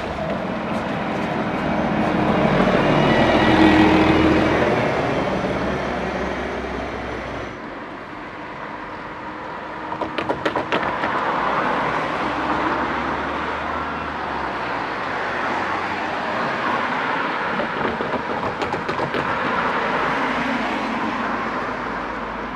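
Road traffic crossing a railway level crossing: a bus drives over and past, loudest about four seconds in, then cars follow, with a quick run of knocks as tyres cross the rails about ten seconds in.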